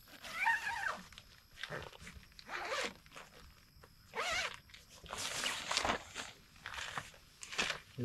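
Nylon tent door zipper being pulled open in a series of short rasping pulls.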